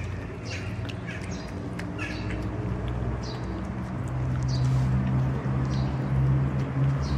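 Small birds chirping in short, high calls about once a second, over a steady low hum that grows louder through the second half.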